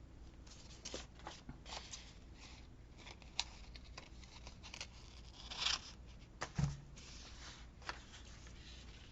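Faint scissor snips and paper rustling as a small paper cut-out is trimmed and handled, with a soft knock about two-thirds of the way through.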